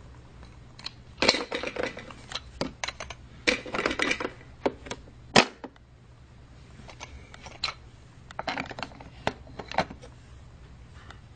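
Hard plastic toy-train playset pieces being handled, clicking and clattering in short bursts, with one sharper knock about halfway through.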